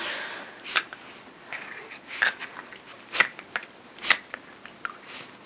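Scuffling and rustling broken by short sharp snaps at irregular intervals, about eight in all, from dogs play-biting and tussling with a person.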